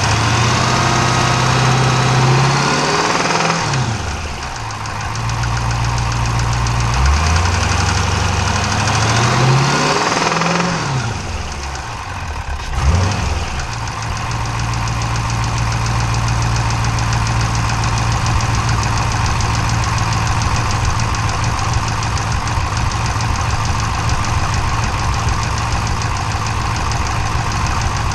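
Chrysler 392 (6.4-litre Hemi) V8 held at raised revs, dropping back, revved and held again, blipped once, then settling into a steady idle. Throughout it has a knock that makes it sound like a Cummins diesel, in an engine with only 1,400 miles on it.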